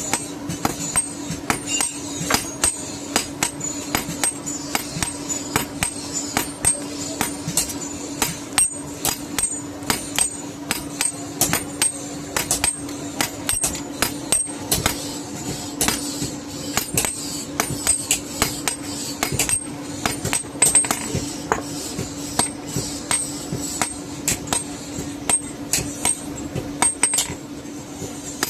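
Hand hammer striking hot iron on an anvil in an uneven run of blows, roughly two a second, each with a short metallic ring, over a steady low hum.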